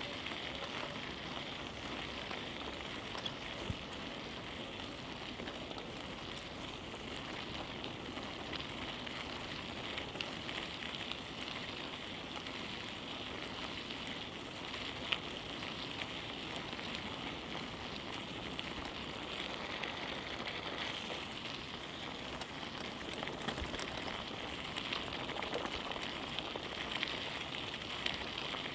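Bicycle tyres rolling along a paved street, a steady crackling hiss with a few faint clicks.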